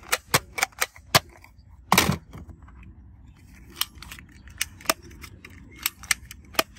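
Hard plastic toy guns clicking and knocking as they are handled. A quick run of sharp clicks in the first second is followed by a louder knock about two seconds in, then scattered single clicks.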